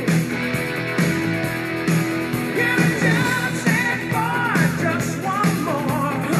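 Rock music with guitar and a steady beat. A high melodic line comes in about halfway through.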